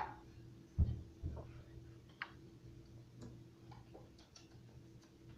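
Quiet kitchen room tone with a steady low hum, a dull thump about a second in, and a few faint light clicks after it.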